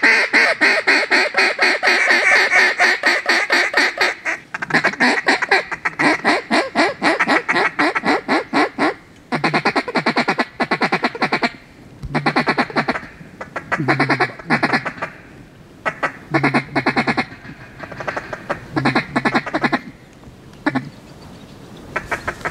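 Hand-blown duck call: a fast, steady run of quacking notes for about nine seconds, then shorter strings of quacks with pauses between them, calling in passing ducks.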